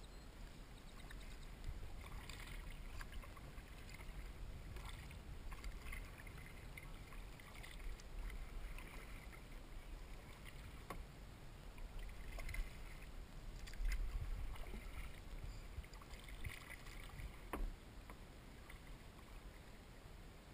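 Kayak paddle strokes on calm water: the blades dipping and water splashing and dripping every few seconds, with a few sharp clicks along the way over a low rumble.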